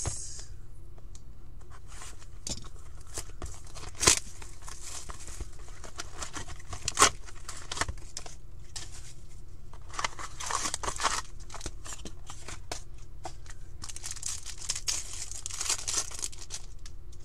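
Hands tearing open a box of 2017-18 Upper Deck Ice hockey cards and its foil packs: plastic and paper wrapping crinkling and ripping, with a couple of sharp snaps partway through and longer stretches of crinkly tearing near the middle and toward the end.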